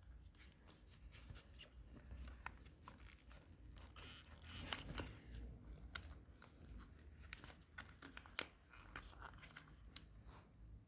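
Faint handling noises of the motorcycle headlight bulb being worked out of its holder: small scattered clicks and scrapes of plastic and metal, busiest about four to five seconds in.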